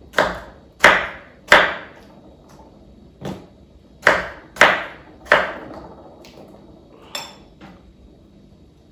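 Kitchen knife cutting tomatoes into quarters on a wooden cutting board, each cut ending in a sharp knock of the blade on the wood. About nine knocks, irregularly spaced, the loudest in the first two seconds and again around four to five seconds in.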